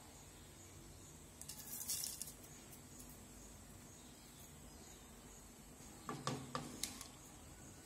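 Quiet kitchen handling sounds: a brief hiss about two seconds in, then a few light knocks and clicks near the end.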